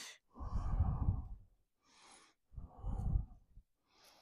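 A person breathing close to the microphone: two long, heavy exhales, with quieter inhales between them.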